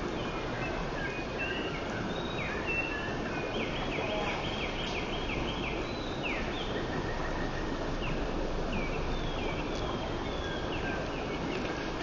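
Steady rush of a shallow stream, with a songbird singing over it in short high chirps. About four seconds in comes a quick run of some eight falling notes.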